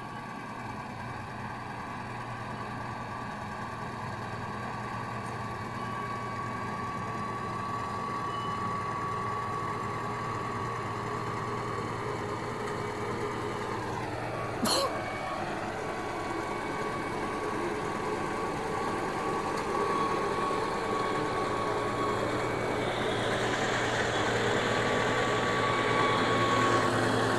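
Bulldozer's diesel engine running steadily with a thin high whine over its low hum, growing gradually louder toward the end. One sharp click sounds about halfway through.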